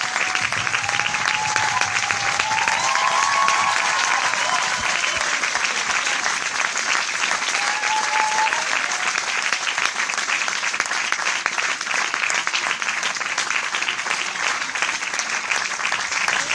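Large audience applauding, a dense, steady wash of many hands clapping with no break.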